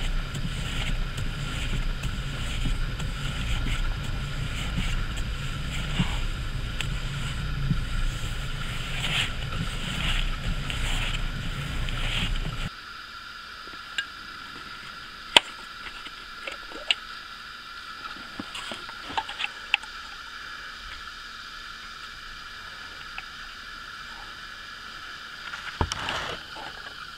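Citroen Xsara engine running, heard from inside the cabin as a steady low rumble while the steering wheel is turned from lock to lock to circulate fresh power steering fluid. About halfway through it cuts off suddenly, leaving a much quieter stretch with a few sharp clicks as the power steering reservoir cap and syringe are handled, and a brief rush near the end.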